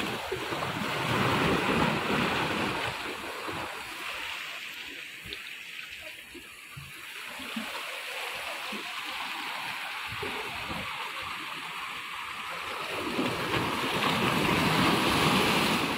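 Sea water surging and washing over rocks at the shoreline, swelling louder about a second in and again near the end.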